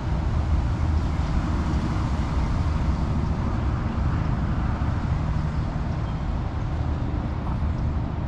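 A steady low rumble with no clear events.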